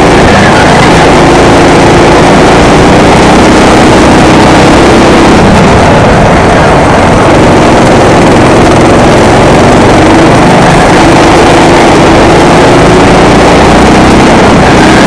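Go-kart engine running hard in a race, its pitch rising and dropping back as the driver lifts and gets back on the throttle through the corners, under loud wind rush on a helmet-mounted microphone.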